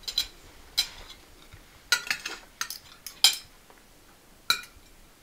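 Forks and spoons clinking and scraping against plates while people eat, in scattered sharp clicks, the loudest about three seconds in.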